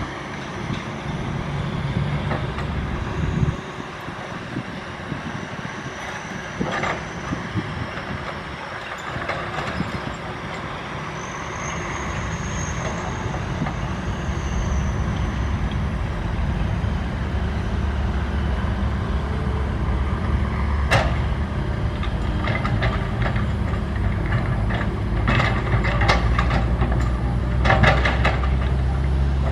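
SANY SY135F excavator's diesel engine running under load as it digs, the rumble growing heavier about midway, with sharp knocks and rattles of metal toward the end.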